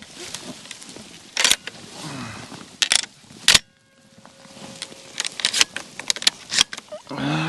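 Dry wheat stubble and blind grass rustling, with several sharp clicks and knocks, as a hunter shifts in a field blind and handles his shotgun.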